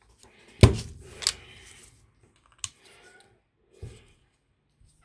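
Four sharp clicks and knocks of small plastic pen parts being handled and set down on a work surface, the first the loudest, with a dull thud.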